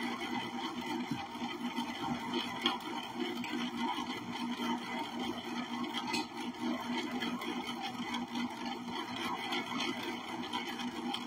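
Steady low hum of a small electric motor running, with a few light knocks of things being handled.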